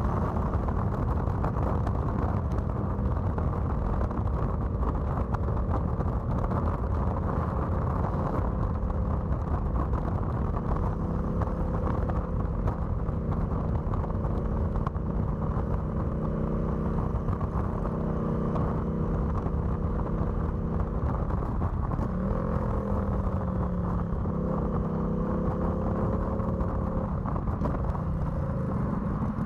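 Honda VTX1300C's V-twin engine running steadily while riding. About two-thirds of the way in its note drops and then climbs back up as the rider eases off and gets back on the throttle.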